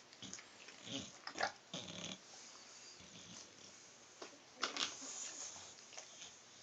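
A dog making a few short, rough noises in separate bursts: about a second in, around two seconds, and again near five seconds.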